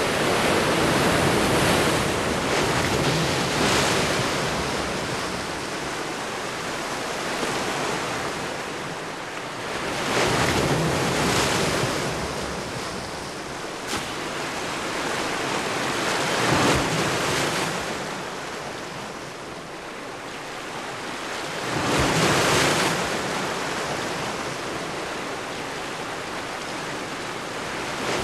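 Rough sea surf, waves breaking and washing in, swelling to loud crashes every few seconds.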